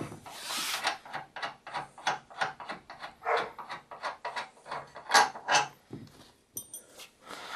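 Hex key turning out a treadmill's rear-roller tension bolt: a run of short metal clicks and scrapes, a few a second.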